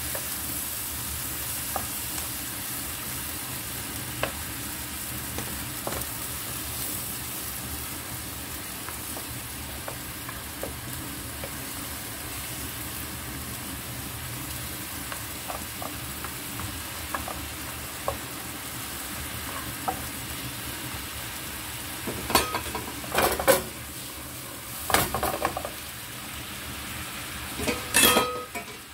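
Pork ribs sizzling and bubbling in a non-stick frying pan while being stirred with a wooden spatula, with small scrapes and clicks. Near the end come a few louder clattering knocks.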